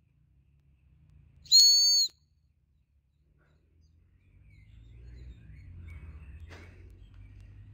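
A dog-training whistle blown once, a single high steady blast of about half a second: the recall signal calling the dog back.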